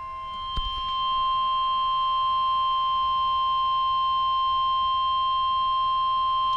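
Emergency Alert System warning alarm tone on NOAA Weather Radio: a single steady high tone near 1 kHz, held unbroken and growing louder about a second in. It is the attention signal that comes before the spoken severe thunderstorm watch message.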